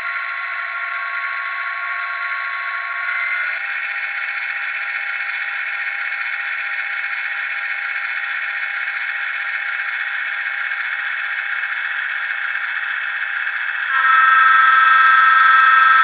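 LokSound decoder playing an EMD 645 diesel prime mover through a model locomotive's small speaker: the engine runs steadily and its note shifts about three and a half seconds in. Near the end a loud air horn with several tones at once sounds over it.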